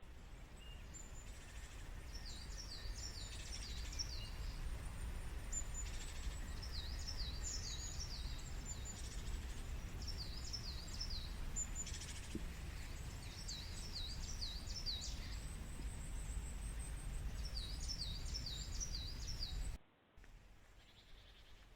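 A small songbird singing a repeated phrase of quick, high, swooping notes, about five times with pauses between, over a steady low rumble of background noise. The sound cuts off abruptly near the end.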